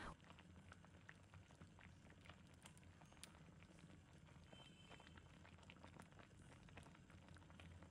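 Near silence, with faint irregular small pops and ticks of a thick tremella (snow fungus) soup simmering in a clay pot.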